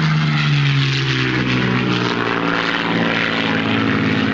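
Aircraft passing close by: a steady rush of engine noise with a low hum that drops slowly in pitch over the first two seconds.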